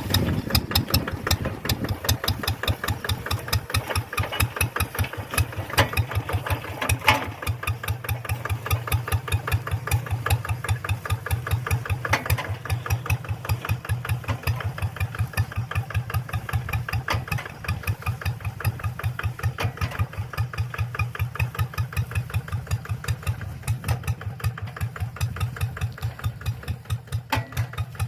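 Hand tractor engine idling with an even chugging, several beats a second.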